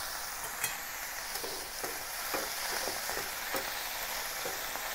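Broccoli sizzling in a hot wok in oil and a splash of water, a steady hiss, as it is tossed with chopsticks and a wooden spatula that tap lightly against the pan every half second to a second.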